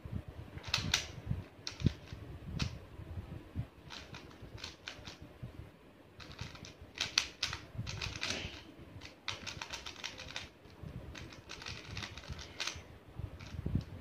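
A plastic 3x3 Rubik's cube having its layers turned quickly by hand, giving irregular bursts of clicking and clacking.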